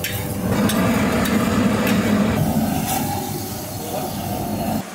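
Gas wok burner running hard with food frying in the pan, with a few faint clinks. The steady noise cuts off suddenly near the end.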